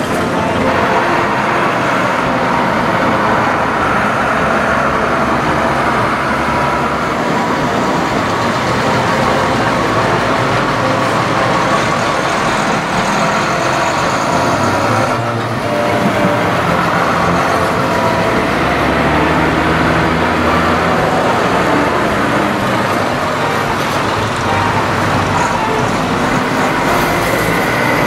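Diesel engines of Schlüter tractors running steadily, with a short break about halfway through.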